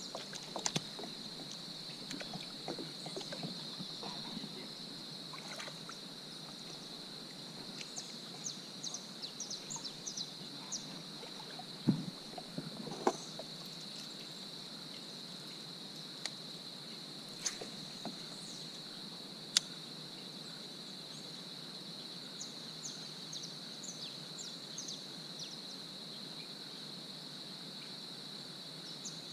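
A steady, high-pitched insect chorus with many short high chirps over it, broken by a few sharp knocks and bumps of gear against a kayak, the loudest about twelve and thirteen seconds in.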